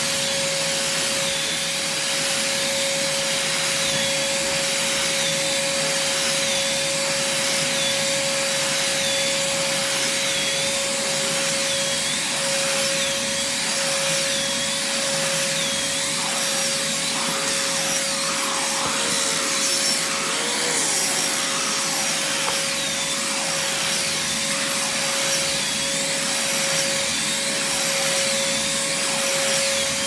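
Craftsman shop vac running steadily with a constant whine, its floor nozzle being worked over carpet, with a faint high whistle that wavers up and down about once a second.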